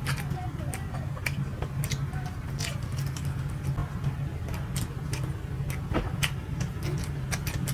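Close-up eating sounds of soft chitoi pitha rice cakes being chewed: scattered mouth clicks and lip smacks over a steady low hum.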